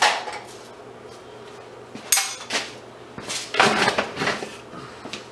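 Small pieces of scrap metal clanking and clattering as they are handled and taken apart by hand: a sharp clank at the start, another about two seconds in, and a burst of clatter around four seconds in.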